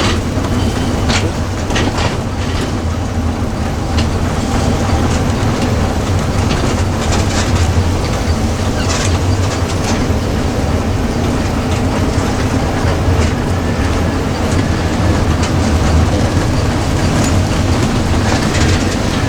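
RV on the move, heard from inside the cab: a steady low engine and road drone with scattered rattles and clicks.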